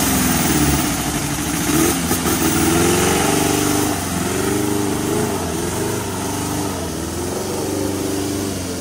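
Off-road 4x4 competition truck's engine running and revving up and down, its pitch rising and falling through the stretch.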